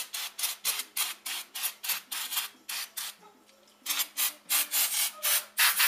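CRC Brakleen aerosol brake cleaner sprayed in quick short squirts onto a wheel hub and brake backing plate: rapid hisses, about four a second, with a brief pause a little past halfway.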